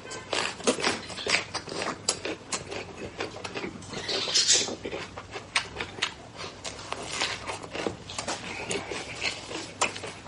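Close-miked eating sounds: wet chewing and lip-smacking, with sharp mouth clicks several times a second and a brief sucking hiss about four seconds in.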